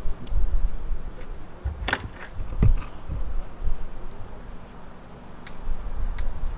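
A door being unlatched and pulled open, with two sharp clunks about a second apart, over a low rumble of wind on the microphone.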